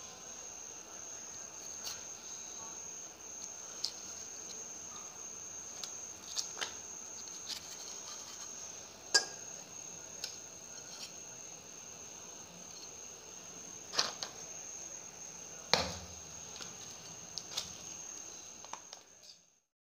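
A cricket trilling steadily on one high note, with scattered sharp clicks and knocks as palmyra fruit flesh is cut out with a knife and dropped into a steel bowl. Two louder knocks come in the last third, and the sound cuts off just before the end.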